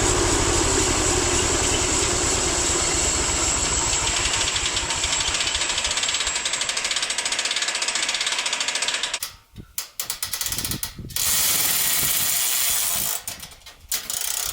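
Homemade band sawmill running on its small gas engine: a steady, rhythmic mechanical clatter. About nine seconds in it cuts off abruptly, then comes back in short, choppy stretches.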